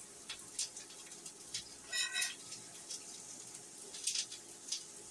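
Chopped onions sizzling in hot oil in a skillet, with scattered small crackles, as more onions are pushed in from a stainless steel bowl. A short ringing sound comes about two seconds in.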